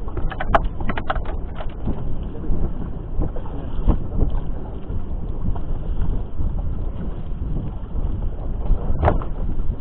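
Steady low rumble of wind buffeting the microphone out on the boat, with a few short clicks in the first two seconds and another near the end.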